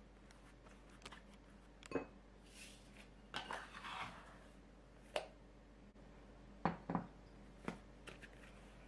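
Plastic dough scraper clicking and scraping against a glass mixing bowl as risen bread dough is worked loose from it, with two dull thuds close together near the end.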